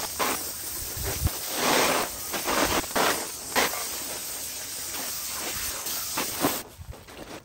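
Water spraying from a hose wand onto a bare aluminum engine block, an uneven hissing spray that cuts off near the end.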